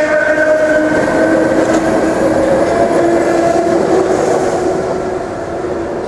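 Historic Hamburg S-Bahn ET 471 electric train passing close beneath, its motors whining steadily over wheel and track rumble. The sound fades a little near the end as the train draws away.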